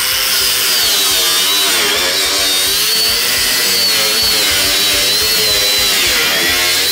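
Corded angle grinder cutting into the steel inner tank of a water heater, throwing sparks. Its high whine wavers up and down as the disc bites and eases off in the metal.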